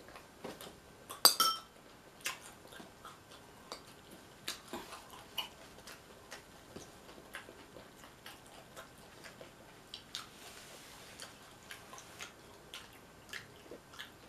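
Close-up eating sounds: scattered small clicks and chewing noises from the mouth, with a sharp clink of cutlery against the dish that rings briefly about a second in.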